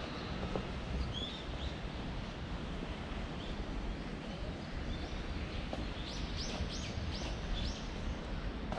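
Small birds chirping over a steady low background rumble. The calls come as scattered short high chirps, with a quick run of about six descending notes a little past the middle.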